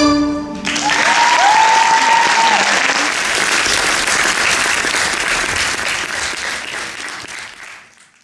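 The music's last droning note stops about half a second in, and audience applause breaks out, with a long high cheer over it for the next couple of seconds. The applause fades out near the end.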